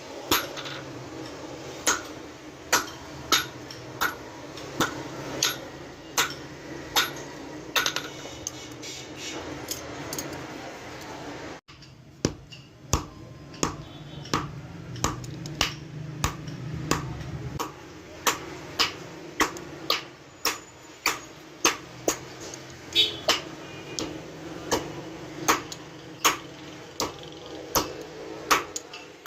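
Hand hammer striking metal on an anvil in a steady forging rhythm, about three sharp metallic blows every two seconds. The rhythm breaks off abruptly a little before halfway and then picks up again.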